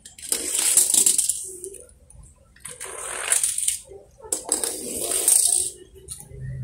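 Toy cars rolling down a board ramp and across concrete, their small wheels rattling, in three runs of about a second each with short quiet gaps between.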